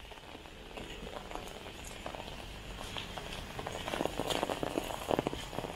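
Drizzle pattering on an umbrella, with footsteps in crocs on wet pavement. Both grow louder and busier about three and a half seconds in.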